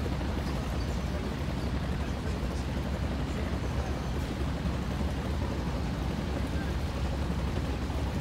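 Wind on the microphone: a steady low rumble and hiss with no distinct events.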